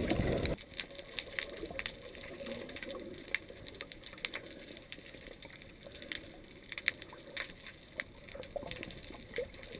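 Muffled underwater sound from a camera just below the sea surface: a low rush of water for the first half second, then a quieter hiss with scattered sharp clicks and crackles, several a second.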